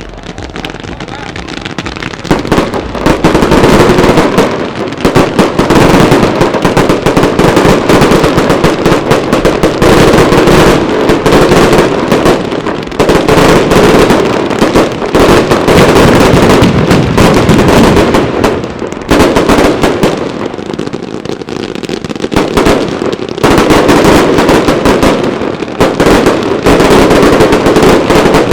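Rapid, dense barrage of firework bangs and crackling from a daylight display, building up about two seconds in and easing off briefly several times, with the longest lull about twenty seconds in.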